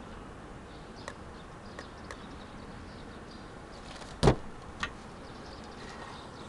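A few faint clicks, then one sharp knock about four seconds in and a lighter one about half a second later, over a steady background hiss.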